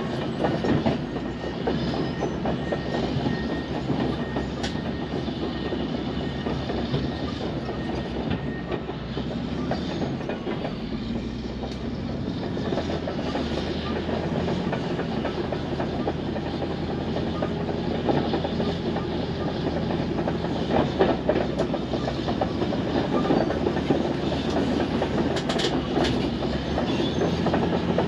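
Bulldozer tearing up asphalt: its diesel engine runs steadily under a continuous dense clatter, with a few sharper knocks.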